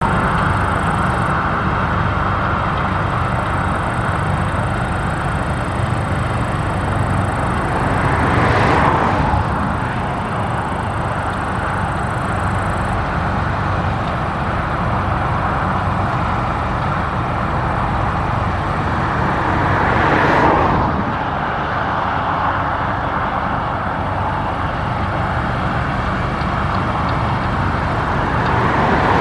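Claas Lexion 670 combine harvester running in the field with a steady, loud drone, swelling briefly about nine seconds in, again about twenty seconds in, and near the end.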